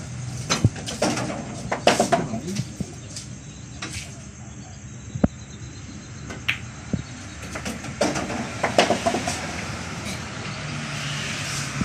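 Sharp clicks of billiard balls on a pool table: the cue strikes the cue ball and balls knock together, heard over a steady low hum.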